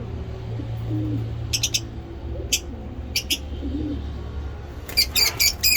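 Lovebirds chirping in short, sharp calls, then a rapid run of chirps near the end, over pigeons cooing softly. A steady low hum runs underneath.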